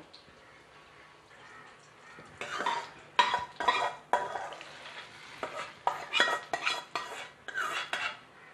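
Metal spatula scraping and clanking against an aluminium kadai as a tempering of mustard seeds, curry leaves and dried red chillies in hot oil is tipped into a clay pot of sambar, with sizzling as the hot oil meets the liquid. The strokes start about two and a half seconds in and come in short, irregular bursts.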